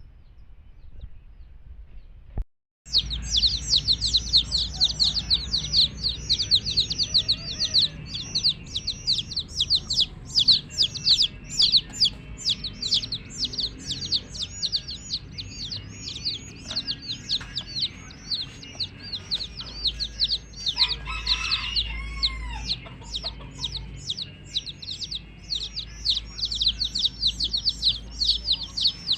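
Baby chicks peeping: a dense chorus of short, high, downward-sliding peeps, several a second and overlapping, starting abruptly about three seconds in.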